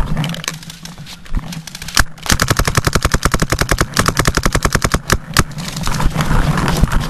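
Paintball markers firing: a few scattered shots, then from about two seconds in a rapid, even stream of shots at roughly ten a second.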